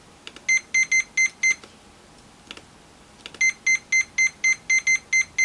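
Fluke 87V multimeter's continuity beeper giving short, high beeps about four a second, each one set off by a tester shorting its probes with pulses of under a millisecond. Five beeps come, then none for about two seconds apart from a few faint clicks, then the beeps resume steadily.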